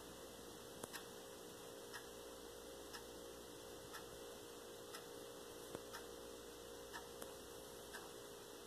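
Faint room tone with a steady hiss, and a light tick about once a second.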